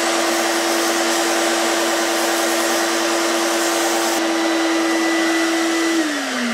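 Benchtop belt sander running with a steady motor hum and belt hiss while a small wooden block is sanded to shape. About six seconds in it is switched off and the motor winds down, its pitch falling.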